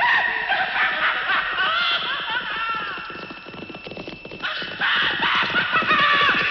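Sound-effects recording of a horse galloping, its hooves clattering rapidly, with whinnying over it. It fades down about three seconds in and swells back up near five seconds.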